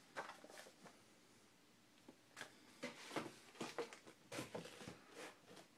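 Faint rustles and light knocks of cookbooks being handled: one book is lifted off a stand and the next is set in its place. The sounds come in a scattered string, a few in the first second and more from about two seconds in.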